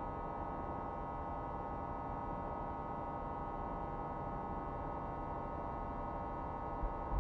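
Steady electronic synthesizer drone of many held tones at once, strongest in the middle register, over a flickering low rumble. Deep bass hits come in near the end.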